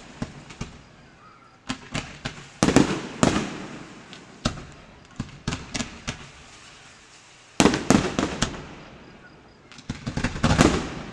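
Fireworks going off: irregular sharp bangs, each trailing off in a rolling echo, thickest about three seconds in, around eight seconds in, and again near the end.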